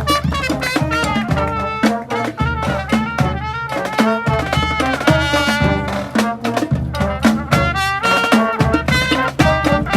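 Street brass band playing: horns sounding layered notes over a steady, driving drum beat.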